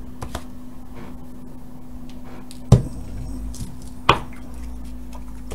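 Tools and a reel of solder being moved about and set down on a workbench: a few sharp knocks, the two loudest about two and a half and four seconds in, over a steady low hum.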